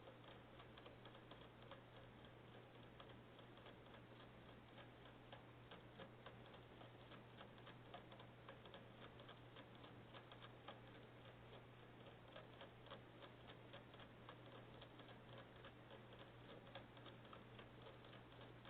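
Faint, rapid, irregular clicking, several clicks a second, over a steady low hum.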